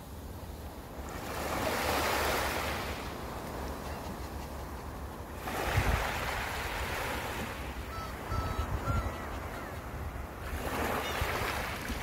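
Sea waves breaking and washing up on a sandy beach, swelling three times about four to five seconds apart, with low wind buffeting on the microphone.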